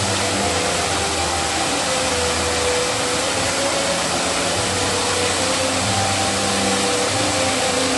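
Large fountain's water cascading and splashing steadily into its basin, a constant rush, with faint hums coming and going underneath.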